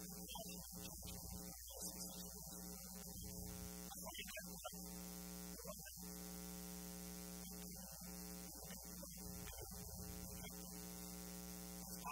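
Steady electrical hum: a low buzz with a stack of evenly spaced overtones that holds level throughout.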